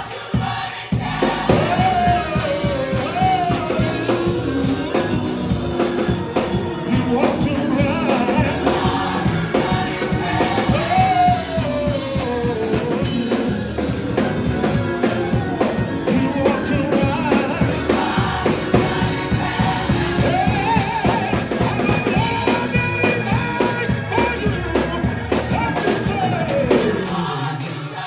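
Gospel choir singing a lively up-tempo song in many voices, accompanied by organ over a steady rhythmic beat.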